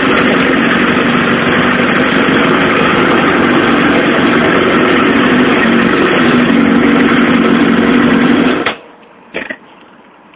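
Suzuki GSX-R SRAD's four-cylinder engine idling steadily, then switched off about nine seconds in, followed by a short knock.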